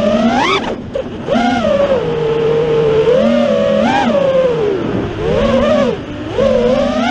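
FPV racing quadcopter's brushless motors and propellers whining, heard from the onboard camera, the pitch swooping up and down with the throttle and dropping off briefly about a second in and again around five to six seconds in.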